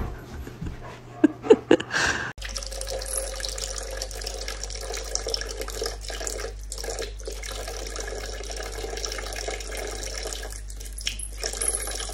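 A few short sharp sounds, then, starting suddenly about two seconds in, a kitchen tap running a thin steady stream of water into a sink.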